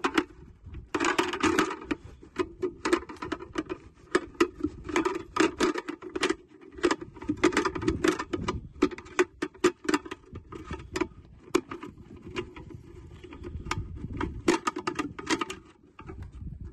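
The XpaK magazine's stainless steel follower spring is being rocked and pulled out of its plastic housing. The wire coils make irregular metallic clicks, rattles and scrapes as they catch and slide against the housing.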